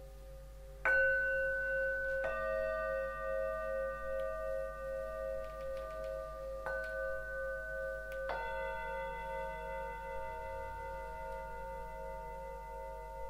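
Ringing metal sound-therapy instruments struck four times, the first stroke the loudest. Each stroke rings on in long clear tones with a slow wavering beat, overlapping the ones before.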